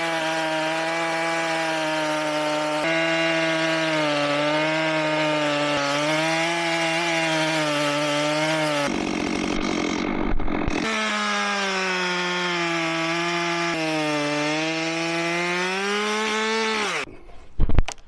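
Stihl chainsaw mounted on a sawmill carriage, running at high revs while it rips lengthwise through a log, its pitch wavering slightly as the chain takes the load. About nine seconds in, the engine note gives way to a rough noise for a couple of seconds, then returns. Near the end the revs fall away and the engine cuts off, followed by a sharp knock.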